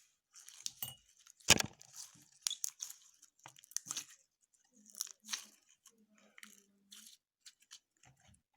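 Handmade slime being squeezed and worked by hand, giving irregular wet clicks and crackling pops, the loudest about one and a half seconds in.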